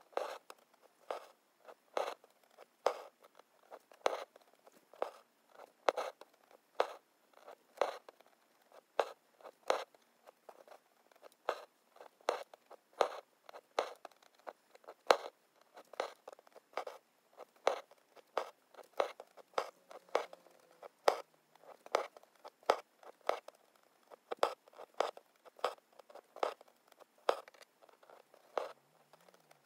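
Hand-embroidery needle piercing fabric stretched taut in an embroidery hoop, with the thread drawn through after it: a steady run of short, sharp, scratchy taps a little faster than one a second.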